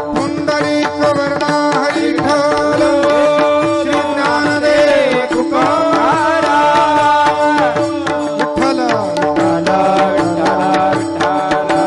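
Devotional kirtan accompaniment music: a melody over a steady drone, with tabla drumming and quick rhythmic strokes. Some of the melody lines glide up and down around the middle of the passage.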